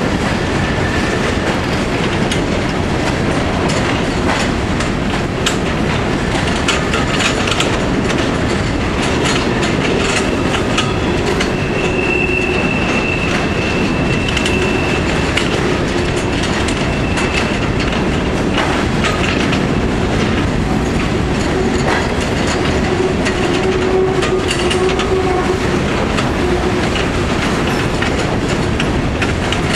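Empty coal hopper cars of a freight train rolling by on a curve: a steady rumble with the clatter of wheels over the rail joints. A thin high wheel squeal comes in about twelve seconds in and lasts a few seconds.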